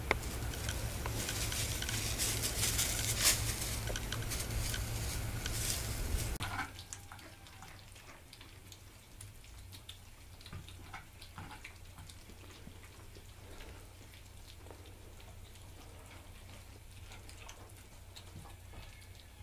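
For about the first six seconds a louder rustling hiss with clicks, which drops away suddenly; after that, faint scattered clicks and smacks of a litter of kittens eating from plates.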